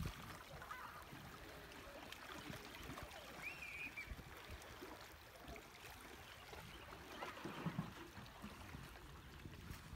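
Small waves lapping and splashing faintly against the rocks of a riprap shoreline. A short, faint warbling call, like a bird's, is heard about three and a half seconds in.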